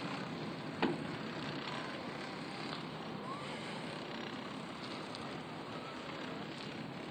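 Steady rushing noise of a ride on an open ski chairlift, with one sharp click about a second in.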